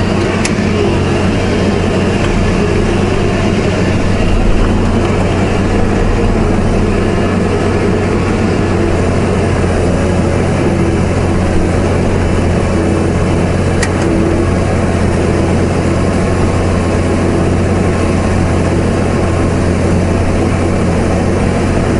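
A 220-horsepower New Holland tractor's engine running steadily under load while it drives a rotary ridger through the soil, forming potato ridges. It is heard from inside the cab.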